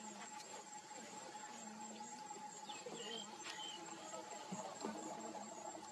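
Steady insect trilling, one thin high note and a lower one held throughout, with a few faint short chirps about three seconds in.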